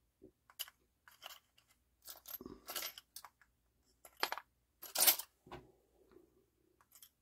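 Steel drill bits clinking and rattling in a plastic drill bit index case as a bit is slotted back in and the case is handled: a string of short, sharp clicks and clinks, loudest around the middle.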